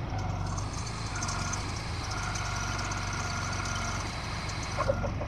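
Telehandler engine running steadily as its hydraulic boom lifts a large wall form, with a hiss and a whine from about half a second in until near the end, and a short knock near the end.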